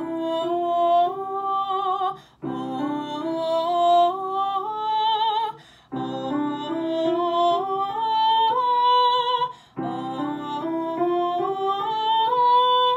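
Woman singing a legato 'oo' vowel over sustained piano chords in four phrases, each climbing step by step to a held top note with vibrato, with a short break between phrases. The notes are joined smoothly rather than started with an 'h', a vocal exercise for carrying a light sound through the passaggio.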